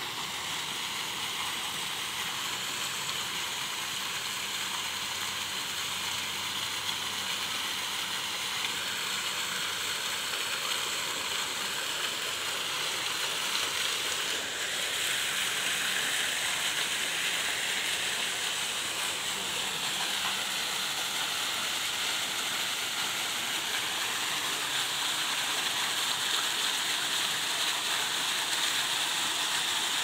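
A multi-jet water fountain's vertical jets splashing steadily into the basin. The splashing grows a little louder about halfway through.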